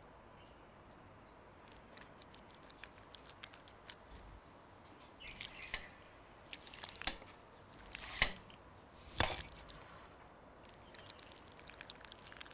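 Soft wet squishes and small clicks of set ice jelly in a steel tray being handled and cut with a knife, busiest a little past the middle, with two sharper clicks then.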